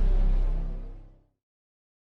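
Intro music with a deep bass note, fading out and ending a little over a second in.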